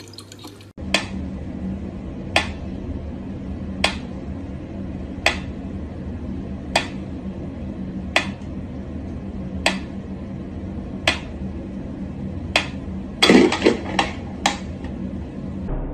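Mechanical pendulum metronome ticking slowly and evenly, one sharp tick about every second and a half, over a low steady hum. About thirteen seconds in, a louder clatter of several knocks breaks in.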